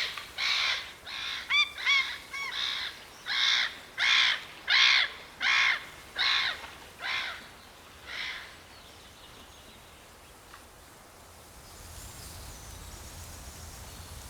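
White-tailed eagle calling: a series of harsh, yelping calls at about one every 0.7 seconds, with a few thinner, higher yelps between them early on. The calls stop about eight seconds in, leaving only faint low background noise.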